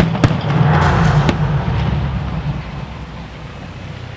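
Aerial firework shells bursting: two sharp bangs about a second apart, the first a quarter-second in, with a rolling rumble that dies away over the next few seconds.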